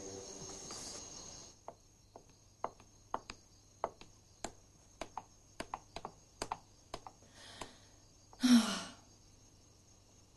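Footsteps of hard-soled shoes clicking on a floor at an uneven pace, one or two steps a second. Late on, a man's loud sigh, falling in pitch, stands out above the steps.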